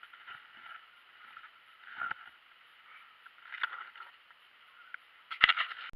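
Handling noise close to the microphone as a caught fish is held up: soft scuffs and knocks over a steady hiss, with a sharper knock about three and a half seconds in and the loudest knock, with a short rattle, about five and a half seconds in.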